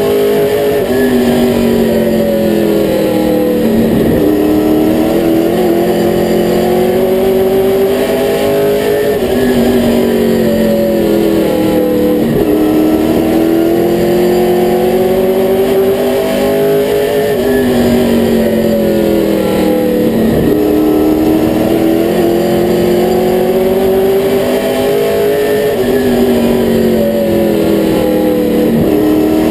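Limited Late Model stock car's V8 engine at racing speed, heard from inside the cockpit. Its pitch falls and climbs again about every eight seconds as the car lifts for each turn and accelerates down the straights.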